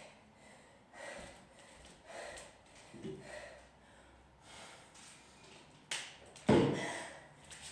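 A woman breathing hard, with audible breaths about once a second, winded while resting between sets of kettlebell snatches. One much louder burst of sound comes about six and a half seconds in.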